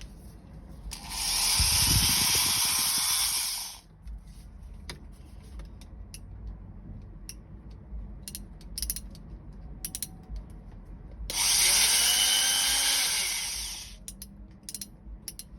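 Corded electric drill-driver running in two bursts of about three seconds each, with small clicks and handling sounds between them.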